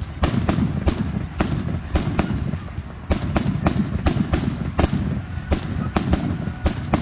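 Fireworks display: a rapid, irregular series of sharp bangs from shells launching and bursting, a couple or more each second, over a steady low rumble, with a short lull about three seconds in.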